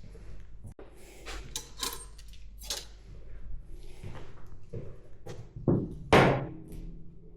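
Metal parts and hand tools knocking and clicking as they are handled during motorcycle assembly, with a louder clank about six seconds in that rings briefly.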